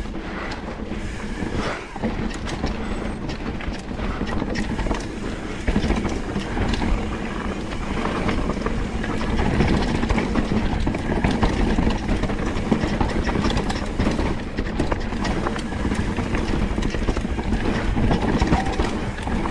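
Mountain bike riding fast down a rough, rocky trail: a steady rumble of tyres over dirt and rock, with a dense clatter of chain slap and frame rattle.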